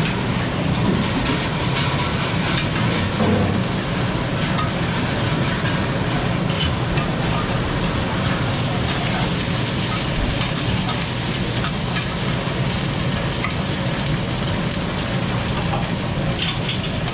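Oyster omelets frying on a hot griddle at a street food stall: a steady sizzle, with a low hum underneath.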